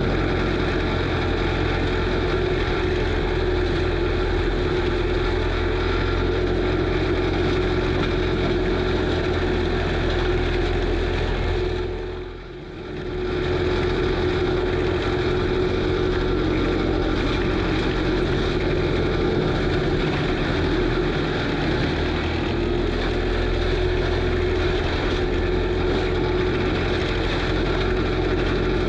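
Kubota SVL95 compact track loader's diesel engine running steadily, driving an FAE forestry mulcher, with a steady whine over the engine. About twelve seconds in, the sound dips sharply for about a second, then comes back.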